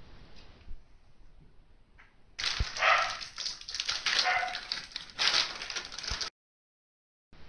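Plastic packaging bag crinkling loudly as it is picked up and handled, starting about two and a half seconds in, after a few seconds of faint handling noise. It cuts off suddenly about six seconds in.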